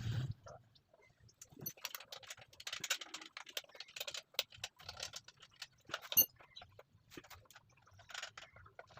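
Irregular light clicks and rattles of small hard objects being handled, with one sharper click about six seconds in.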